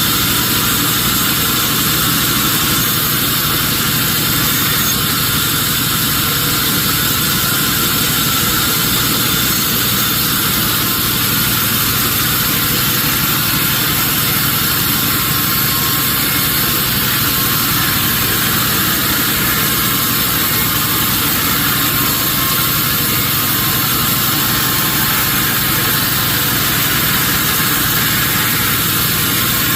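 Sawmill machinery running steadily, an even mechanical drone with no change in pitch or level.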